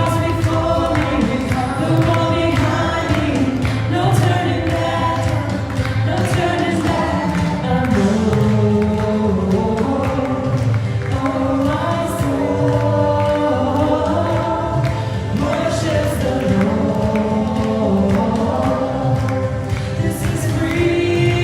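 Worship music: voices singing together over a band with a steady low beat.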